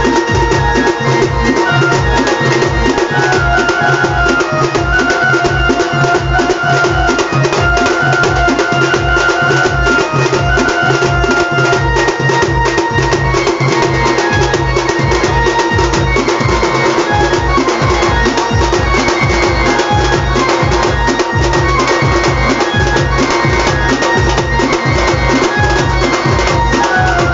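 Traditional Khandeshi pawari dance music: the droning, reedy melody of a pawari, a gourd-and-bamboo wind instrument, over a steady drum beat.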